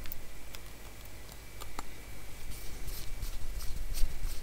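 Small screwdriver turning the tiny grub screws that hold the phase plate on a Shimano TLD 15 reel spool: faint, scattered light metal ticks, coming more often in the second half.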